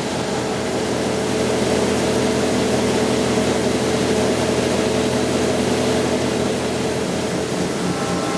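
John Deere C670 combine harvester running steadily: a constant machine drone with a steady whine in it.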